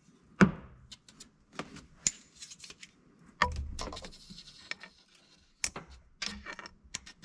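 Metal hand tools clinking and clanking, about six sharp clicks spread out with rustling between, while reaching for a dropped socket.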